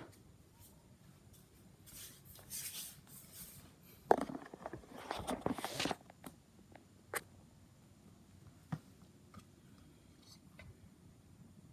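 Packaging being handled while unboxing: two stretches of rustling a couple of seconds long, the second louder and starting with a sharp knock, then a few single clicks and taps.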